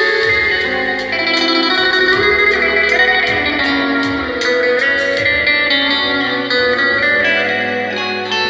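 Live amplified saz playing a melody in quick plucked notes, accompanied by an electronic keyboard.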